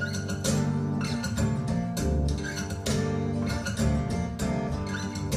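Music played through Triangle Borea BR03 BT powered speakers and picked up by microphones in the room: an instrumental passage of strummed acoustic guitar over bass, with no singing.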